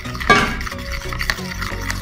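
Metal fork stirring and scraping a thick dish-soap and powder mix in a ceramic bowl, its tines clicking against the bowl, with one louder clink about a quarter second in.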